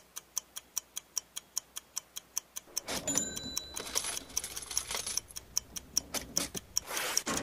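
Clock ticking steadily, about four ticks a second. About three seconds in, a rushing swell and a brief thin ringing tone join the ticking.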